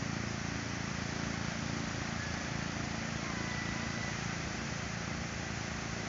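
Steady wash of sea breeze on the microphone and small waves breaking along the shore, with a faint, steady low hum underneath.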